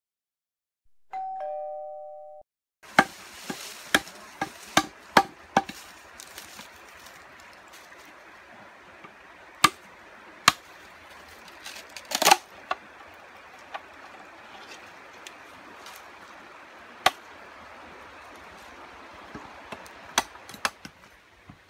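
A two-note electronic chime, a high tone then a lower one, sounds about a second in. Then a steady outdoor hiss with scattered sharp knocks and taps at irregular intervals, from wood and green bamboo tubes being handled; the loudest come about three, ten and twelve seconds in.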